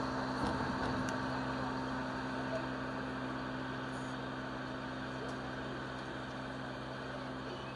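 Steady low machine hum with several constant tones over a steady background hiss.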